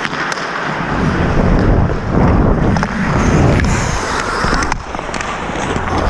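Hockey skate blades scraping and carving on rink ice in swells about a second apart, heard from a helmet-mounted camera with wind rushing over its microphone. A few sharp clicks, typical of sticks on ice or puck, cut through the noise.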